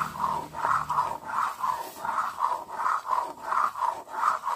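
Metal ladle stirring thickening kheer of milk and rice flour in a kadai, a rhythmic sound at about three to four strokes a second.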